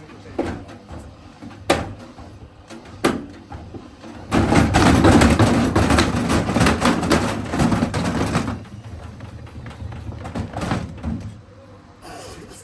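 Washing machine with its door open, banging and clattering: three separate knocks, then about four seconds of loud clattering and rattling that dies down to a quieter rattle.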